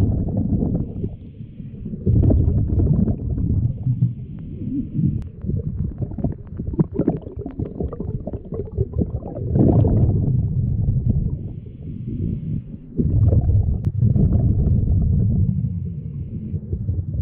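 Scuba diver breathing through a regulator underwater: exhaled bubbles rumbling and gurgling in bursts every few seconds, with a faint hiss between them.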